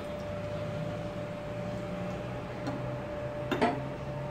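A low steady hum with two short clinks near the end, a light one and then a sharper one, as a plastic cooking-oil bottle knocks against a small steel pan while oil is poured in.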